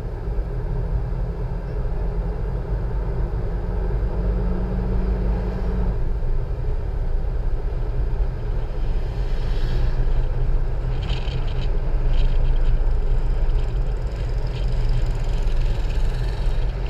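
Car driving at speed on a paved road: a steady low rumble of engine and road noise, with a humming note that drops out about six seconds in.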